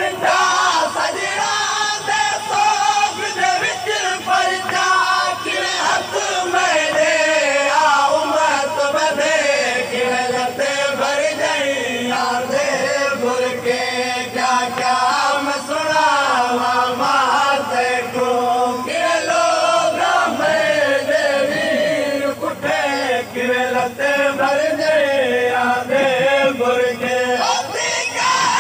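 Men's voices chanting a noha, a Shia mourning lament, together in a crowd, a lead reciter's melody carried by many voices in a steady, continuous chant.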